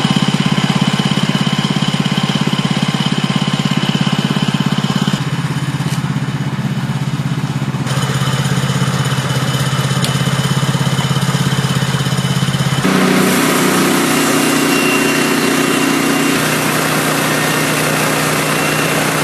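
The small gasoline engine of a portable sawmill runs steadily. Its note changes abruptly a few times, and from about 13 seconds in it runs with a fuller, busier tone.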